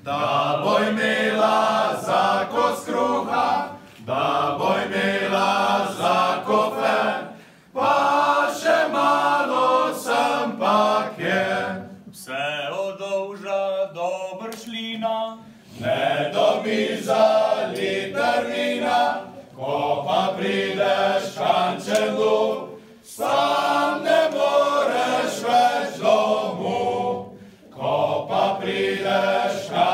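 Small male vocal ensemble singing a cappella in several parts, in long phrases with short breaks between them.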